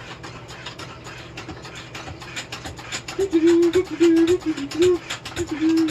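Rapid clicking of a small mechanism. From about three seconds in, a voice hums a string of short notes over it, and the humming is the loudest sound.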